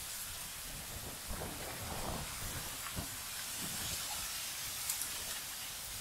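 Steady outdoor hiss of background ambience, with a few faint ticks and no clear bird call.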